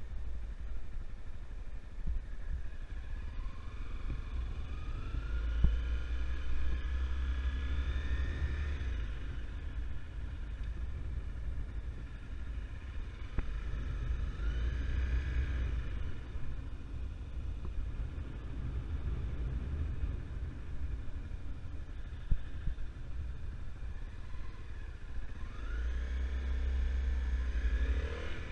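Honda CRF250L single-cylinder four-stroke motorcycle engine under way, its pitch rising three times as the bike accelerates, over a steady low rumble.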